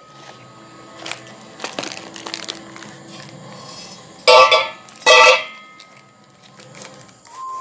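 Crumpled packing paper rustling and scraping as it is pulled out of a new Royal Enfield Classic silencer, with two loud, brief clattering bursts about four and five seconds in.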